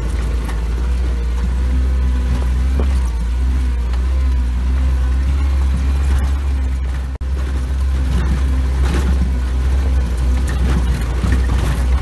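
Soviet UAZ off-roader's engine running steadily as it drives along a rough dirt track, heard from on board as a loud, steady low drone. The sound drops out for an instant about seven seconds in.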